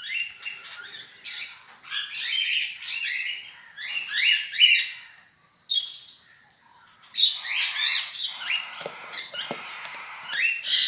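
Small pet parrots chattering, a stream of short, shrill squawks and chirps. There is a lull about five seconds in before the calls resume.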